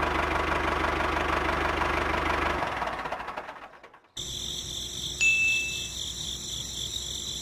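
Miniature tractor's motor running steadily with a low rhythmic pulse, then fading away about three seconds in. After a short silence, steady high chiming tones begin, with a brief high beep about a second later.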